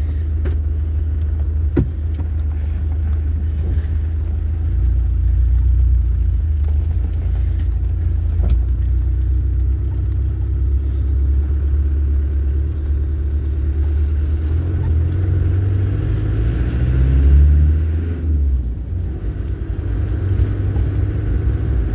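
Turbo-diesel vehicle engine running while driving, a steady low drone with a couple of sharp knocks. About fifteen seconds in, the engine note rises as it accelerates, then drops abruptly, as at a gear change.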